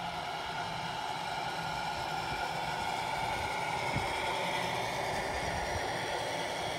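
1:10 scale RC semi-truck with a box trailer driving slowly on asphalt, giving a steady, even mechanical running sound. There is a single short low thump about four seconds in.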